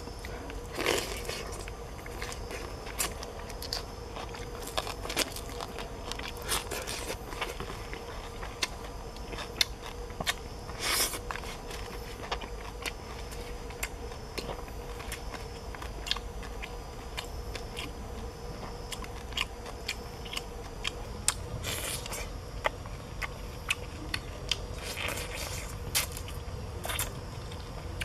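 A person eating by hand close to the microphone, chewing and biting into raw shallots, rice and roasted fish, with many small mouth clicks and a few louder crunches.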